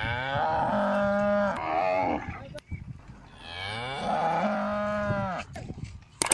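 Cattle mooing: two long moos of about two seconds each, the second beginning about a second and a half after the first ends.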